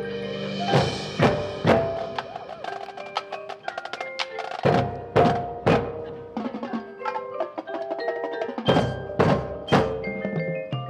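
High school marching band music: held notes with mallet percussion, and sharp percussion hits in pairs about a second in, near the middle and near the end.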